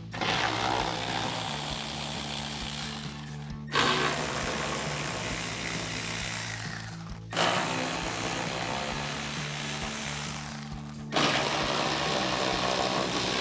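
Cordless ratchet with an 8 mm socket spinning out the screws that hold a plastic fender liner: four runs of about three and a half seconds each, with short breaks between.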